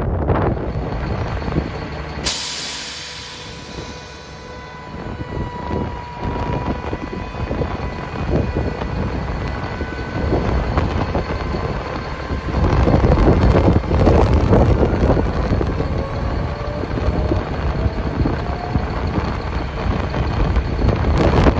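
Wind rumbling on the microphone, louder in the second half. About two seconds in, a sudden sharp hiss of released air fades away over a second or two: the truck's air system venting.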